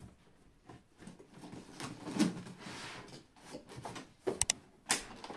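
Cardboard box flaps and packing material being pulled and rustled, with a few sharp clicks and knocks about four to five seconds in.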